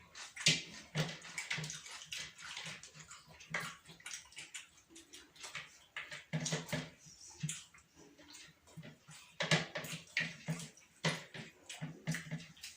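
Close-up wet eating sounds: chewing and lip-smacking on a mouthful of chicken biryani, with many irregular short smacks and clicks.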